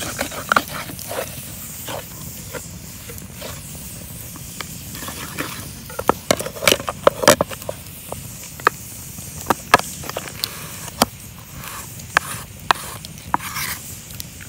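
Wood campfire crackling, with sharp irregular pops that come thickest about six to seven and a half seconds in. A wooden spatula works food in a small frying pan held over the flames.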